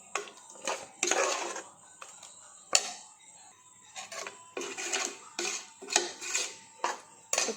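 A metal spoon stirring thick gravy in a cooking pot, with repeated scraping strokes and a few sharp knocks of the spoon against the pot.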